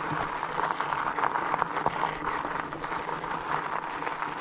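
Tyres of a loaded bikepacking bicycle rolling over a gravel track: a steady crunching hiss dotted with many small clicks and rattles.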